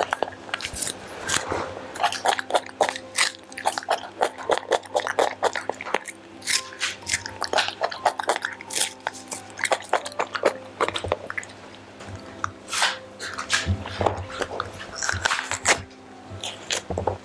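A young macaque biting and chewing raw vegetables close to a microphone: a rapid, uneven run of short crisp bites and chews throughout.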